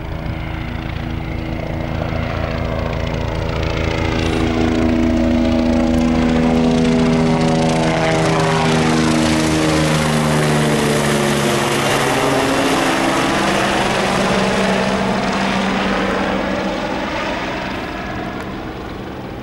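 MBB/Kawasaki BK117 twin-turbine helicopter flying past. Its engine and rotor sound swells to a peak about seven seconds in and then fades, the pitch dropping as it goes by.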